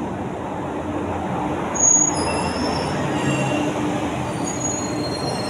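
Metro train rolling along a station platform: a steady low rumble, with thin high-pitched wheel squeals starting about two seconds in.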